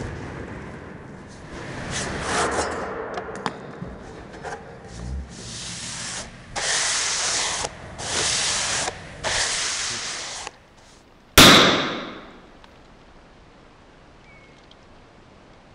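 A paintbrush drawn across a wooden surface in a series of rasping strokes, about a second each. About eleven seconds in comes one loud, sudden burst that dies away within a second.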